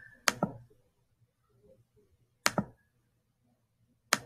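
Computer mouse clicking: a quick pair of sharp clicks near the start, another pair about halfway through, and a single click near the end.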